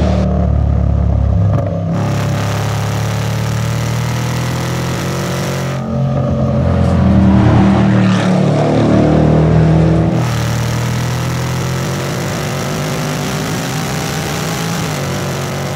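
Range Rover Sport SVR's supercharged 5.0-litre V8 running and revving, its pitch rising and falling. The sound comes in cut-together pieces that change abruptly about two, six and ten seconds in, and is loudest in the middle piece.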